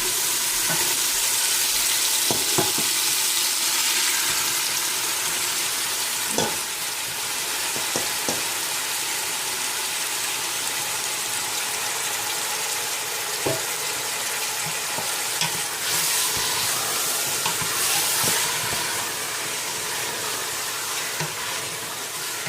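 Raw chicken pieces sizzling in hot oil with sautéed garlic, onions and tomatoes, a steady frying hiss. A few short clicks of a spoon against the pan as the pieces are stirred.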